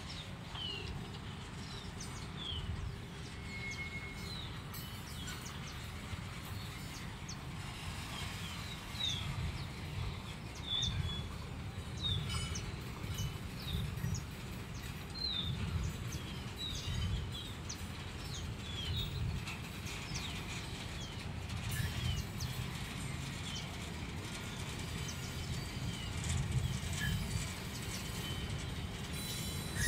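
Freight train of hopper wagons rolling slowly past in a low, uneven rumble, with small birds chirping many short chirps over it.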